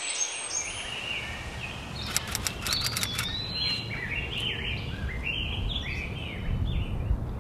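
Songbirds chirping repeatedly over a low outdoor rumble, with a brief run of clicks a couple of seconds in.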